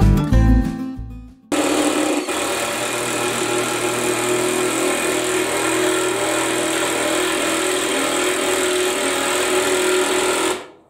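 Guitar music fading out over the first second or so, then a motor that starts abruptly, runs at a steady, even pitch for about nine seconds and cuts off near the end.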